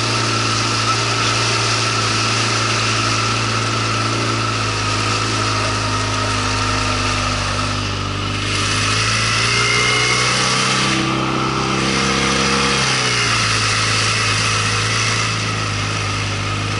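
Boat outboard motor running steadily, pushing an inflatable boat along under a hiss of wind and water. About halfway through, the engine note climbs for a few seconds, then drops back abruptly.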